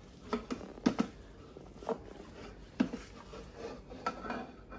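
Wooden spatula scraping raw minced meat off a ceramic plate into a Thermomix bowl: a handful of short, irregular scrapes and soft knocks.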